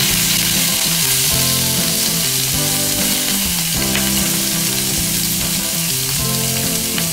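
Pork rib pieces sizzling and frying in hot oil in a wok, turned now and then with chopsticks, an even, steady hiss. Soft background music plays underneath.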